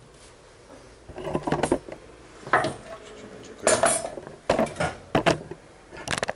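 Plastic cling film crinkling and a knife clicking against a plastic tray as the wrapping is cut away from a beet-cured salmon fillet, in several short, irregular spells of handling noise.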